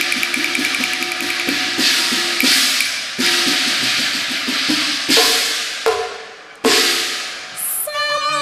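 Cantonese opera percussion interlude: wood block ticking in rapid runs, with repeated gong and cymbal crashes that ring and fade. Near the end, bowed strings come in with a sliding melody.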